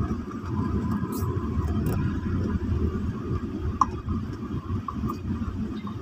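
Car driving on a concrete road, heard from inside the cabin: a steady rumble of engine and tyres, with a few brief faint ticks about four and five seconds in.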